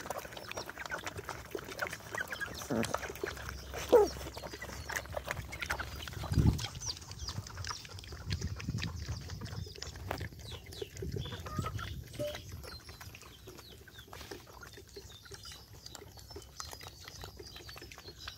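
Dogs lapping, slurping and chewing watery rice gruel from a tyre trough: a dense run of wet smacks and clicks that thins out in the second half. A few short animal calls come in the first four seconds.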